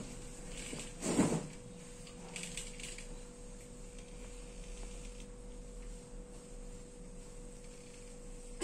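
A steady low electrical hum with faint rustling as the kitten is handled on the table, and one short thump about a second in.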